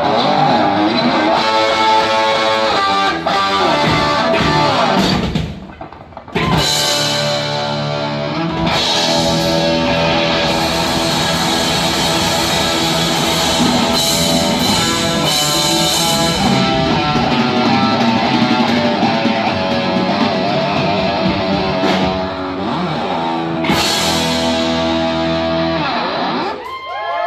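Heavy metal band playing live: distorted electric guitars, bass and drum kit. The music briefly drops away about six seconds in, then the full band comes back in.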